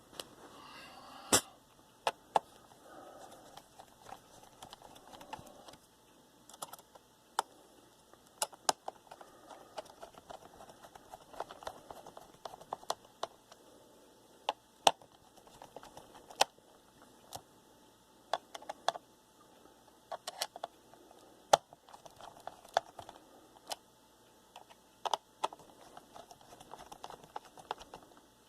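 Laptop heatsink screws being tightened with a small screwdriver, turned a little at a time, one after another: irregular light clicks and ticks of the driver and screws, with a few sharper taps.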